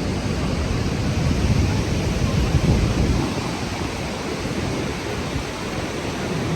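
Gullfoss waterfall's steady roar of falling water, mixed with wind buffeting the microphone; the low rumble eases off a little past the middle.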